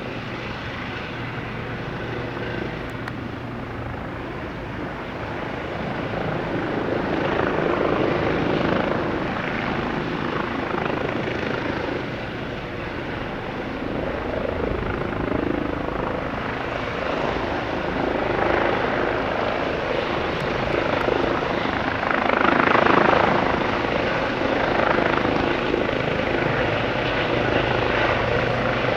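Eurocopter EC135 twin-engine helicopter running, a steady rotor and turbine noise that swells and fades in loudness and is loudest about two-thirds of the way through.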